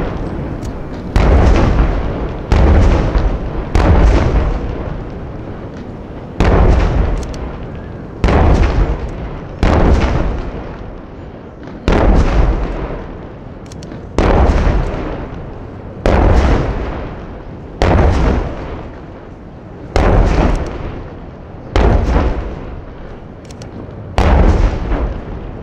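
Large firework shells bursting one after another, about one every one and a half to two seconds. Each is a sharp boom followed by a long rolling echo that dies away before the next.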